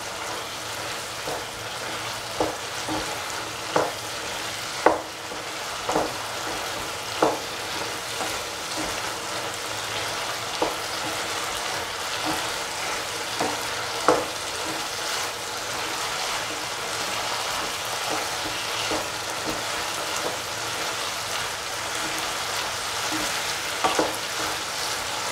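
Chicken and cauliflower sizzling in a frying pan while a spatula stirs them. The spatula knocks and scrapes against the pan every second or so for the first several seconds, then only now and then over the steady sizzle.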